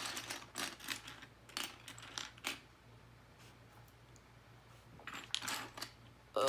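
Small plastic LEGO pieces clicking and rattling as they are rummaged through by hand. There are two spells of clicks with a quieter gap of about two seconds between them.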